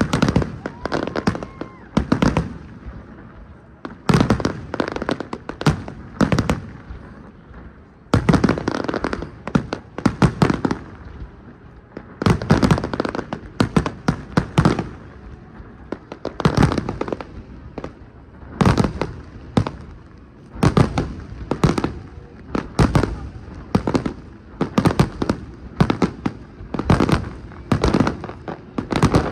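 Fireworks display: a rapid run of shell bursts, loud bangs coming in clusters every second or two, each dying away before the next.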